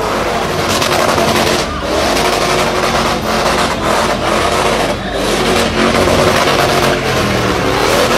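Car engine revving hard as the car spins doughnuts, the revs rising and dropping several times.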